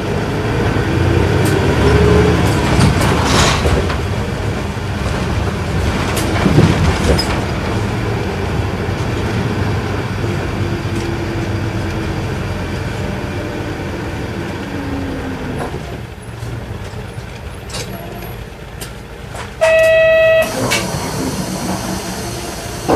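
Isuzu Erga Mio bus's inline-six diesel engine heard from inside the cabin, pulling along, then easing off as the bus slows and stops. Near the end a loud electronic tone sounds once, for under a second.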